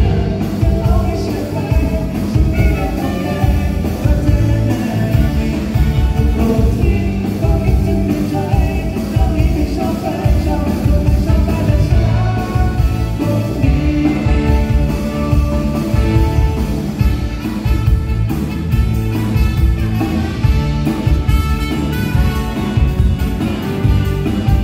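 Live band playing a rock-style song, with singing over a steady drum beat and heavy bass.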